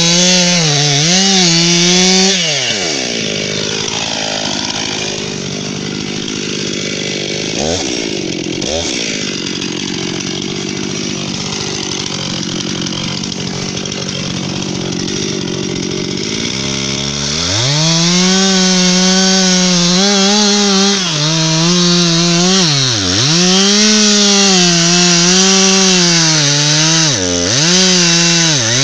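Stihl MS 261 two-stroke chainsaw cutting into a poplar trunk at full throttle, then dropping to idle about two seconds in, with two short blips of the throttle around eight seconds. Around seventeen seconds it revs up again and cuts, its pitch dipping over and over as the chain bogs down in the wood.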